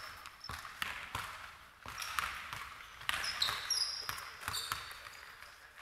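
A basketball bouncing on a hardwood court, with irregular thuds and short high sneaker squeaks, echoing in a large gym.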